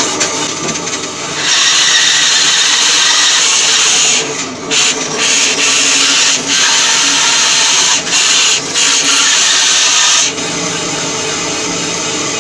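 Bandsaw blade cutting through a block of firewood log. A steady cutting noise sets in about a second and a half in, breaks off briefly a few times, then drops back near the end to the saw running without cutting.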